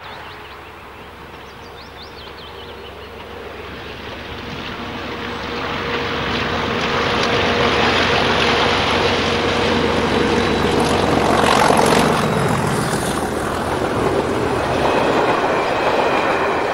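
English Electric Class 37 diesel locomotive approaching with a train of coaches, its engine growing louder, then passing close by about twelve seconds in. The coaches then run past on the rails.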